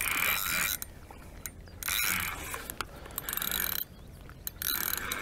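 Feeder spinning reel being wound under the load of a hooked fish, in four bursts of about a second each with short pauses between them.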